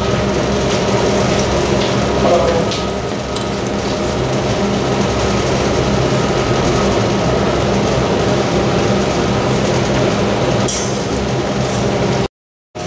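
Steady mechanical hum of machinery in a room, with a few light clinks. The sound cuts out completely for about half a second near the end.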